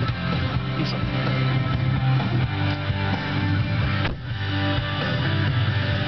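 Guitar-driven music playing over the car's audio system, fed from a USB stick through a Parrot car kit.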